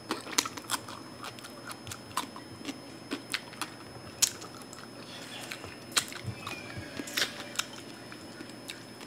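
Close-up chewing and biting of crunchy deep-fried pork skin from a crispy pork head: irregular sharp crackles and crunches.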